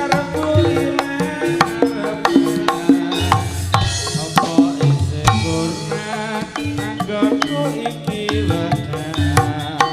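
A jaranan senterewe ensemble playing an instrumental passage: a quick, steady beat of drums and percussion under a melody line that wavers in pitch.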